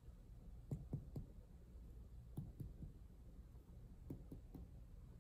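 Faint, dull taps of finger-on-finger (mediate) percussion over the left side of a man's abdomen and lower ribs, in three groups of about three quick taps. This is spleen percussion along the anterior axillary line.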